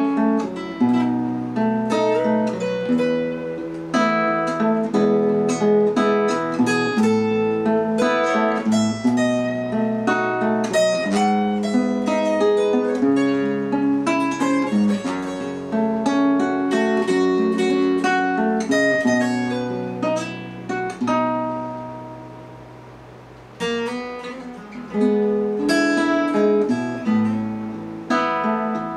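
Two acoustic guitars playing a duet: a run of picked melody notes over chords and bass notes. About two-thirds of the way in, the playing thins out and a chord rings and fades away, then both guitars come back in loudly.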